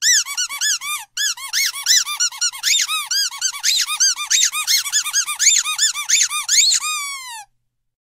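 Comedy squeak sound effect: a rapid string of short high squeaks, each rising and falling in pitch, about five a second, with a brief break about a second in and a longer falling squeak at the end.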